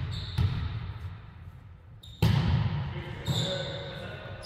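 Volleyball being struck by hand during a rally in a gymnasium, three sharp hits, the loudest about halfway through, each ringing in the hall. Short high sneaker squeaks on the hardwood floor come in between.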